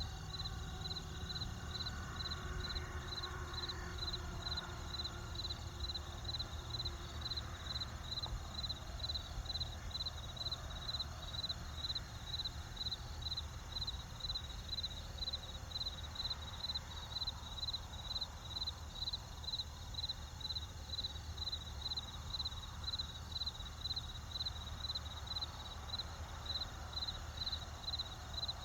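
Crickets chirping steadily, about two high chirps a second, over a low steady rumble.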